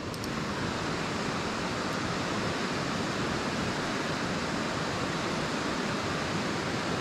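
Steady rushing of river water running over a shallow riffle, an even hiss with no breaks.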